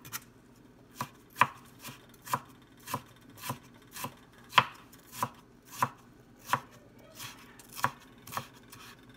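Cleaver chopping fresh ginger into thin strips on a plastic cutting board: even, sharp knocks about two a second.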